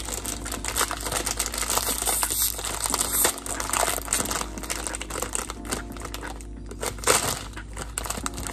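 A plastic instant ramen packet crinkling and crackling as it is squeezed and crumpled in the hands, with a louder crackle about seven seconds in.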